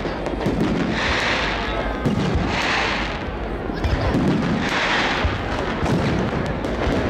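Fireworks display: aerial shells bursting in a dense run of bangs, with a hiss that swells and fades every second or two.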